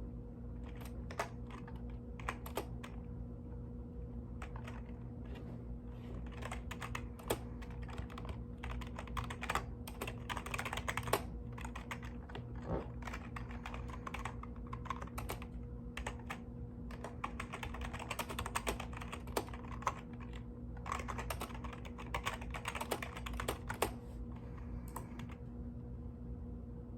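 Mechanical keyboard being typed on: runs of rapid key clicks in bursts with short pauses between them, over a steady low hum.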